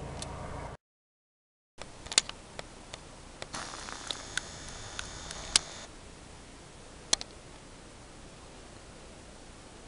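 A low steady rumble cuts off abruptly within the first second, then a second of dead silence. After that comes faint steady hiss with a handful of sharp clicks and ticks, the loudest about two, five and a half and seven seconds in.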